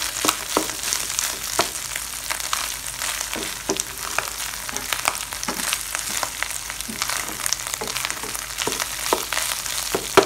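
Diced pork frying in oil with shrimp paste, a steady sizzle, as a spatula stirs it with frequent scrapes and taps against the pan.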